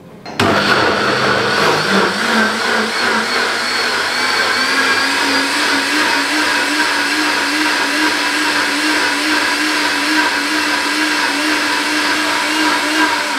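Countertop blender switched on about half a second in, running at high speed to purée cooked vegetables and spices into a marinade. Its motor hum climbs in pitch over the first few seconds, then holds steady until it is switched off at the end.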